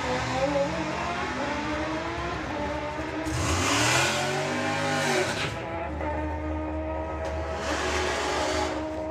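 Drag racing cars, a Junior Comp dragster and an older car, launching and accelerating down the strip, their engines climbing steadily in pitch. The loudest surge comes about four seconds in, rising and then falling away, with a second shorter surge near the end.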